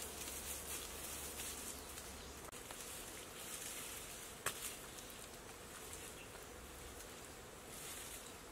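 Faint buzzing and shrilling of insects, with light scrapes of hands smoothing wet mud over the thatch and one sharp click about halfway through.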